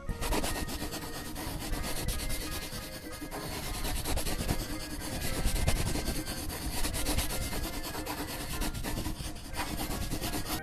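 A drawing tool rubbing and scratching across paper in quick, continuous strokes.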